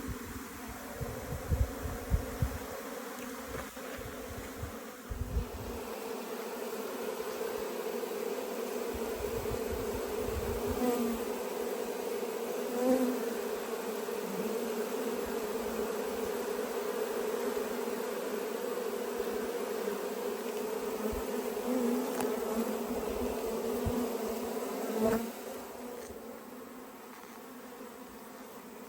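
Honeybee colony buzzing in a steady hum as the hive is opened and worked. Low rumbles in the first few seconds, and a few light knocks, the sharpest about 25 seconds in.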